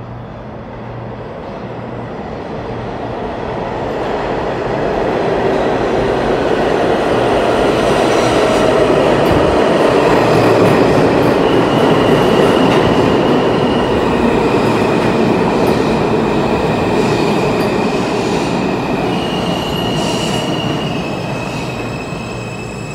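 R160 subway train running into the station and slowing: a wheel rumble that builds over about ten seconds and then eases off. High-pitched squealing tones from about halfway through as it brakes.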